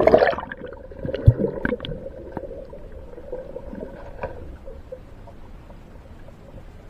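Water sloshing and splashing, with a sharp knock at the start and a dull thump about a second in, over a faint steady hum that fades out after about five seconds.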